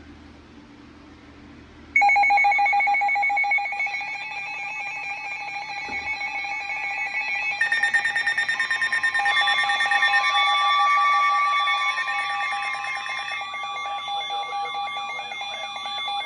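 Emergency Alert System attention signal: loud, steady electronic alert tones that start abruptly about two seconds in, several pitches layered together with a pulsing edge, some tones joining and dropping out partway through. Faint hiss before the tones begin.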